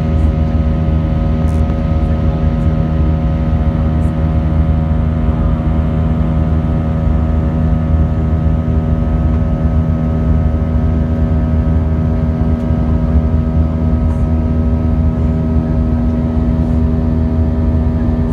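Cabin noise of an Airbus A319 airliner in flight: the jet engines and airflow make a steady, loud drone, with several steady humming tones over a low rumble.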